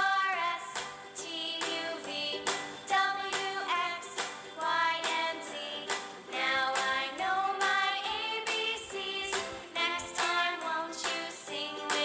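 Background music: a song with a high singing voice over a steady beat.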